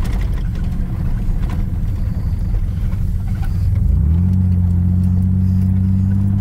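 Off-road vehicle engine running steadily under way. Its even note breaks into a rough rumble near the start, then settles back to a steady drone about four seconds in, rising slightly in pitch.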